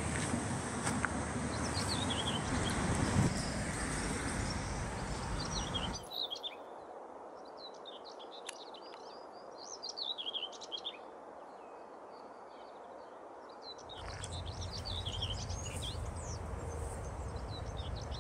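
Small birds chirping and singing in quick high notes over a steady rush of outdoor background noise. The rush drops away suddenly about six seconds in, leaving the birdsong clearer, and returns about fourteen seconds in.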